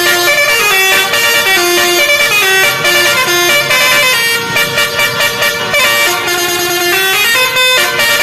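Telolet basuri musical air horn on a Jetbus Horizon coach playing a quick tune. Several tones sound together and step from note to note, with short breaks about four and a half seconds in and near the end.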